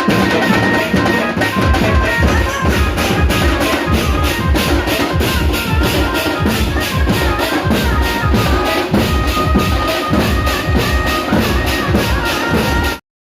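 Loud drum-driven music: a fast, steady beat with a melody on top, and heavy bass drum coming in about two seconds in. It cuts off abruptly near the end.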